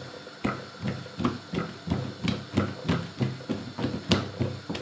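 Hands rounding a ball of soft brioche dough on a steel work surface: a run of soft thumps and taps, about three a second, as the dough is turned and tucked under to close it.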